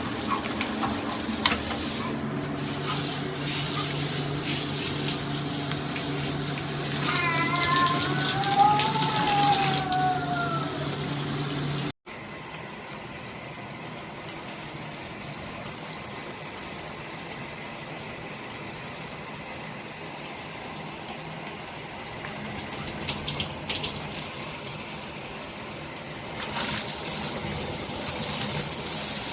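Water running from a shower head, a steady rush with a low hum, rising to a louder hiss with a brief whistling glide partway through. After a sudden cut the flow is quieter, and near the end a louder, hissier spray starts.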